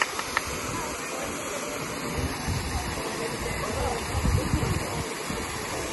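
Small waterfall pouring over rock ledges into a pool: a steady rush of falling water, with a few louder low rumbles near the middle.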